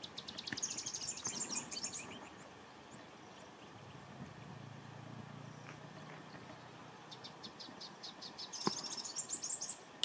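Beautiful sunbird singing: two bursts of rapid, high twittering notes, each about two seconds long, one near the start and one near the end.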